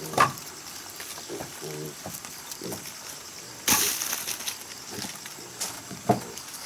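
A few sharp knocks, about a quarter second in and again near the end, and a brief crackling snap a little past the middle, wood-like in character, with a couple of short low calls in between.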